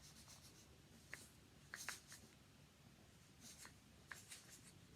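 Faint rustling and a few light clicks of hands handling a roll of sticky tape.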